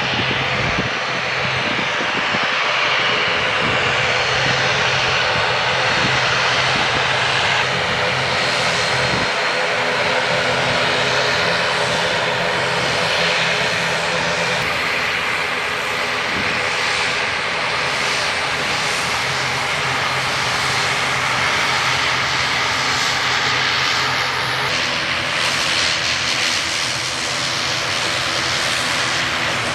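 Airliner's engines running loud and steady, a dense roar with a low steady drone underneath, holding at much the same level throughout.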